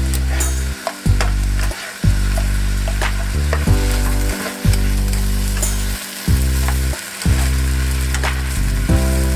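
Fried rice with shrimp and vegetables sizzling in a frying pan as it is stirred, just after soy sauce has gone in. Under it run steady low music notes that change about once a second.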